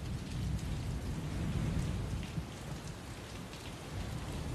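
Steady rain with a low rolling rumble of thunder.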